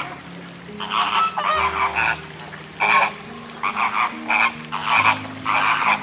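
A series of about ten short, harsh animal calls in quick succession, over soft held low tones that change pitch.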